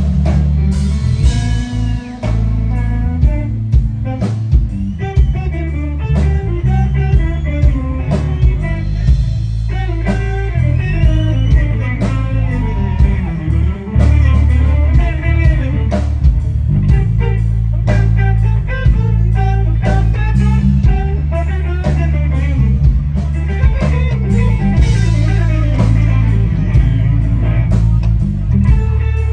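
Live band music: guitar over bass and a drum kit keeping a steady beat, with a winding melodic line above.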